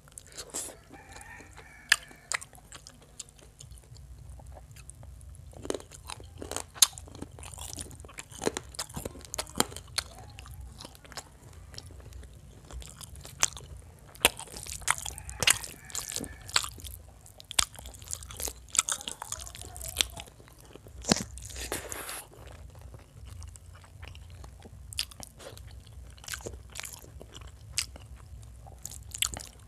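Close-up eating sounds of a person eating chicken curry and rice by hand: chewing and biting, with many irregular short, sharp clicks and smacks, over a steady low hum.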